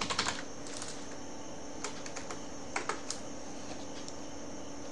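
Computer keyboard being typed on: a scattered run of individual keystrokes, some close together, over a steady low background hum.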